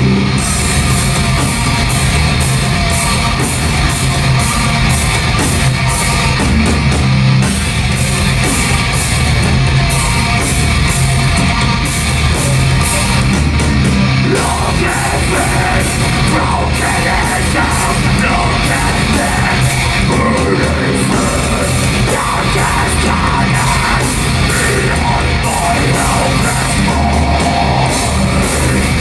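Thrash/death metal band playing live at full volume, with distorted electric guitars, drums and shouted vocals.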